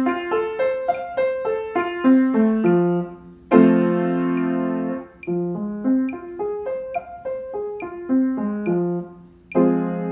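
Yamaha upright piano played in cross-hand arpeggios: runs of single notes stepping upward, each run landing on a chord held for about a second and a half, about three and a half seconds in and again near the end.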